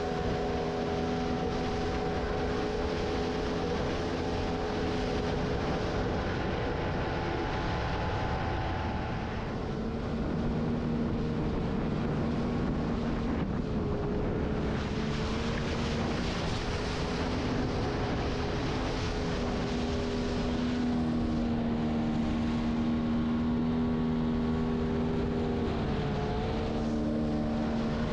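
Outboard motor running steadily on a moving inflatable boat. Its note shifts slightly in pitch a few times, over the rush of fast river water and wind.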